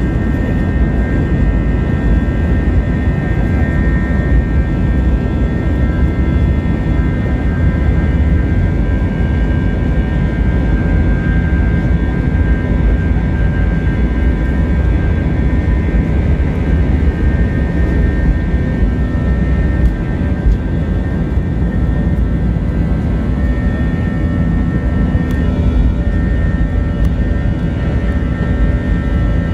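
Airbus A321's twin turbofan engines at takeoff thrust, heard from a window seat in the cabin over the wing through the takeoff roll and lift-off. A steady loud rumble with a high whine from the engine fans.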